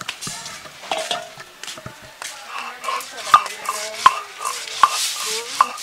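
Stone roller knocking and rubbing on a flat grinding stone (shil-pata) as mustard seeds are crushed into paste: a string of sharp clicks as the stone strikes the seeds, with a gritty rubbing hiss building toward the end.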